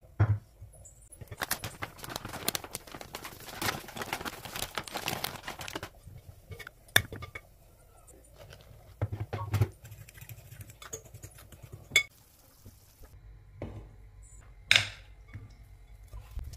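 Flour shaken through a stainless steel sifter into a glass mixing bowl: a few seconds of fast, scratchy rattling. It is followed by a few separate sharp clinks and dull knocks of utensils against the glass bowl.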